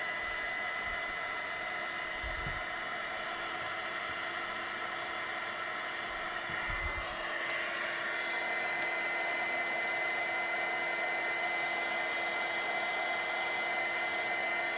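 Handheld mini hot air gun running steadily, its small fan motor giving a steady high whine over the rush of air, getting slightly louder about halfway through. It is shrinking heat-shrink tubing over soldered wire joints.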